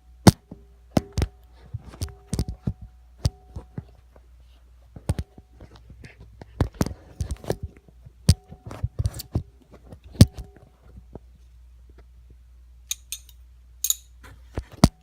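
Irregular clicks and knocks of hands handling tools and parts, with a few short scraping sounds near the end.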